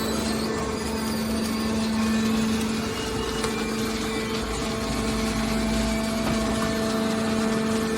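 Horizontal hydraulic scrap-metal baler running: a steady hum from its hydraulic power unit, with a deeper rumble swelling for a second or two around the middle.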